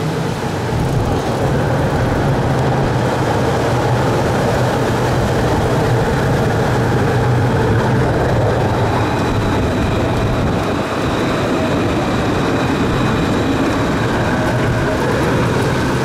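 Alstom Citadis 403 tram passing close by: a steady rumble of wheels on rail, with a high electric whine coming in about halfway through.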